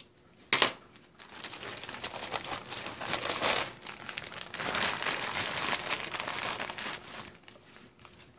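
A sharp scissor snip about half a second in, then several seconds of a clear plastic zip-top bag crinkling as it is handled and moved.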